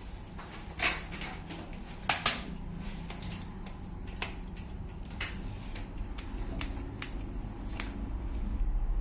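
Haircutting scissors snipping through sections of wet hair on a mannequin head: a scattered series of sharp clicks, the loudest about a second in and twice just after two seconds, over a steady low hum.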